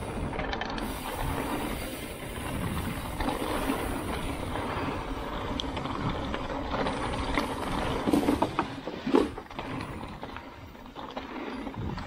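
Mountain bike riding down a rough enduro trail: a steady rumbling rattle of tyres and bike over uneven ground, with a couple of sharp knocks about eight and nine seconds in.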